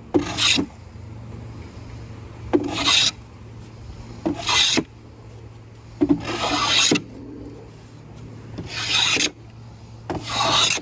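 Hand plane shaving down a strip of wood glued onto the edge of a wooden casement sash, trimming the patch flush. Six rasping strokes come one every second or two.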